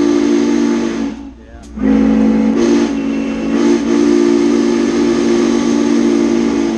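Norfolk & Western 611's steam whistle blowing, several notes sounding together over a steam hiss. One blast cuts off about a second in, and a second long blast starts about two seconds in and holds steady.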